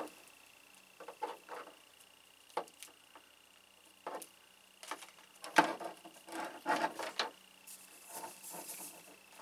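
Light knocks, taps and rubbing from a salt rock lamp being handled and shifted on a table, with one sharper knock about halfway through and a short scraping rustle near the end as it is lifted and tilted.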